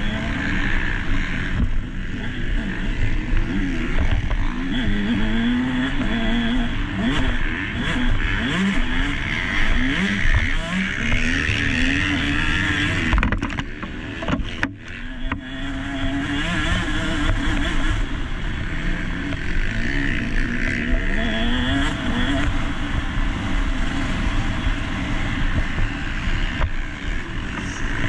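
Motocross bike engine recorded onboard during a race, revving up and down as the throttle is opened and closed. About halfway through the throttle is briefly chopped and the engine drops off before it is opened up again.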